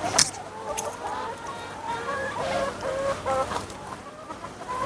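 A flock of laying hens clucking, many short overlapping calls from different birds. A sharp click sounds just after the start and another a little before one second in.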